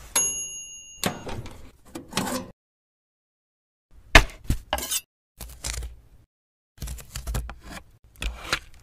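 A toaster oven's timer bell rings once at the start, then a metal baking tray clatters as it is taken out and set down, the hard plastic pieces and bottle caps on it clinking and crackling in several short bursts.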